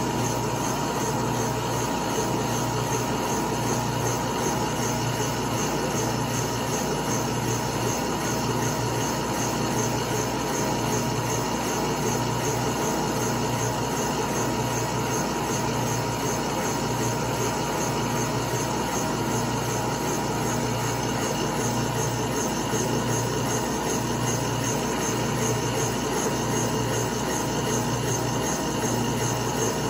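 Milling machine spindle turning a Wohlhaupter UPA3 boring and facing head as it feeds down through a faceplate bore, taking a light boring cut of about 9 thousandths per side. It is a steady, even machine sound with a thin constant tone and a softly pulsing hum.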